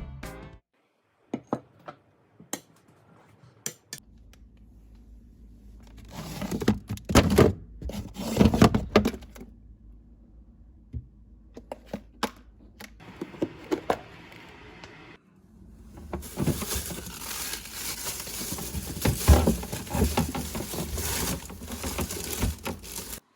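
Home kitchen cooking sounds: dishes and utensils clinking and knocking, with stretches of steady hiss, the longest and loudest in the second half.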